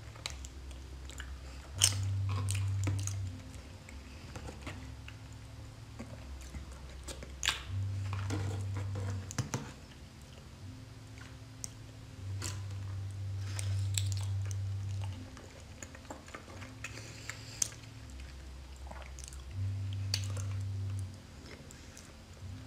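Close-miked chewing and biting of raw salmon sashimi topped with salmon roe: soft wet bites and scattered sharp mouth clicks and smacks. Underneath, a low tone steps back and forth between two pitches every second or two.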